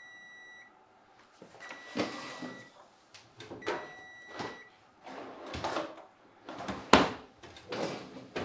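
Smoke alarm beeping in short, high-pitched beeps, three times in the first few seconds. Then a run of swishes and knocks as a towel is flapped about and things are handled, the loudest about seven seconds in.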